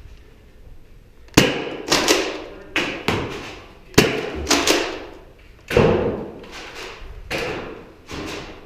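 A volley of Nerf Rival blaster shots and foam balls striking office surfaces: about a dozen sharp thumps, often two or three in quick succession, each with a short ringing tail.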